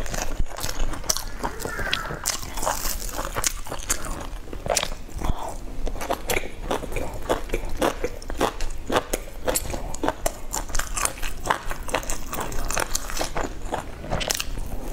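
Close-miked mouth sounds of a person biting into and chewing soft pan-fried meat-filled buns: a dense, steady run of short clicks.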